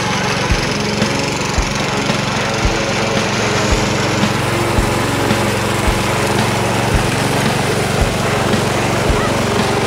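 Riding lawn tractor's engine running steadily while it tows a loaded log trailer over rough dirt, with a low thump repeating about once a second.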